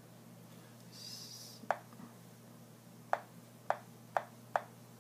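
Key clicks from typing on a BlackBerry PlayBook tablet's touchscreen keyboard: one click, then four more about half a second apart, each short and sharp. A brief soft hiss comes just before the first click, over a faint steady hum.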